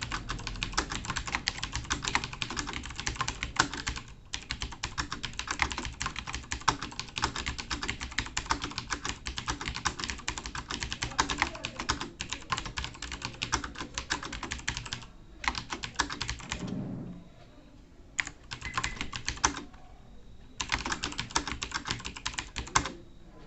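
Fast typing on a computer keyboard at about 105 words per minute: a dense, rapid stream of key clicks. It stops briefly a few times in the second half, with only scattered keystrokes, then picks up again near the end.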